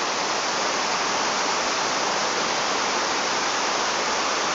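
Steady rush of water pouring over a low weir across a river.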